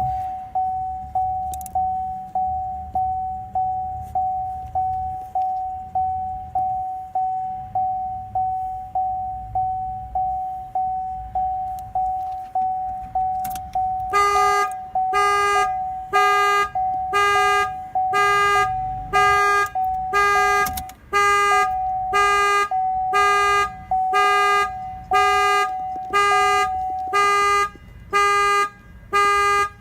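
Rapid electronic beeping, about two single-pitched beeps a second, heard while a transponder key is programmed to a Chevrolet Sonic. About 14 seconds in, a second, fuller chime joins in and repeats alongside the beeps.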